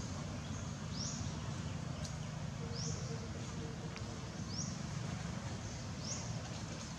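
A bird repeating a short, high rising chirp about every one and a half to two seconds, over a steady low background rumble.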